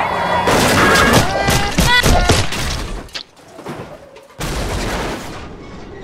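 Car crash: a rapid run of banging, crunching impacts in the first two and a half seconds, then a second loud rush of noise that starts suddenly about four and a half seconds in and fades.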